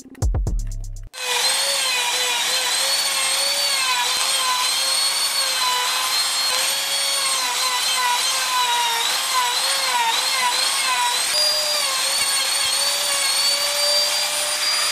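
Compact trim router running and cutting plywood to widen a rectangular opening, starting about a second in. Its high-pitched motor whine is steady and wavers slightly in pitch as the bit takes the cut.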